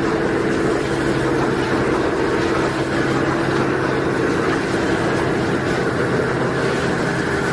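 Tissue paper log saw cutting machine running, a steady mechanical hum with held tones over a constant whirring noise.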